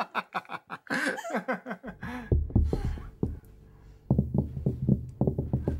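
A short laugh, then from about two seconds in a run of heavy, irregular thuds and knocks over a low rumble, coming faster toward the end: the restless lizard baby thrashing about in the room above.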